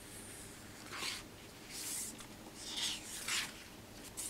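Paper pages of a sticker book being turned by hand: a few soft swishes and rustles of paper sliding and flipping.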